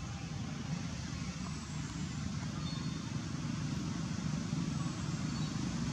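Steady low background rumble with no sudden sounds, a few faint short high chirps over it.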